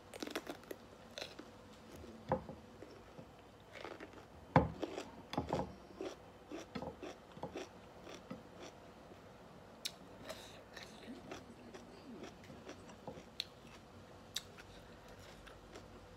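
Close-up eating sounds: crunching bites and chewing of raw cucumber and other raw vegetables, irregular crunches and mouth clicks with quieter chewing between them. The loudest crunch comes about four and a half seconds in.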